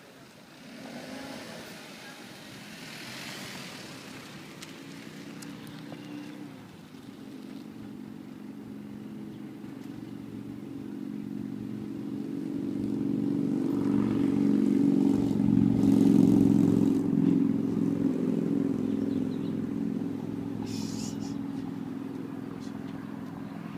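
A motor vehicle's engine running, growing louder to a peak about two-thirds of the way through and then fading, as it passes close by.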